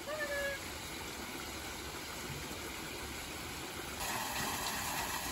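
Small garden cascade of water running over rocks, a steady trickling rush that gets a little louder about four seconds in.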